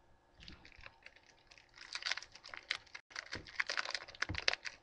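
Foil Pokémon booster pack wrapper being torn open, a dense run of quick crinkling crackles that grows busier and louder after the first couple of seconds.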